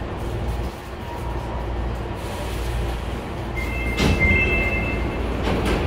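Hankyu 5300 series resistance-control commuter train heard from inside the car, rolling slowly along an underground platform with a steady low rumble. From about three and a half seconds in, a high steady brake squeal sounds for over a second, with a knock about four seconds in.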